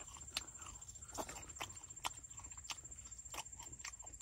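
Faint, irregular mouth clicks and smacks, about two a second, of someone chewing a spicy fried chicken drumstick.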